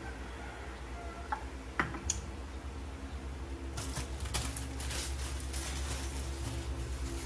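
A steady low hum, with a few separate clicks in the first two seconds, then a quick irregular run of light clicks and crackles from about four seconds in.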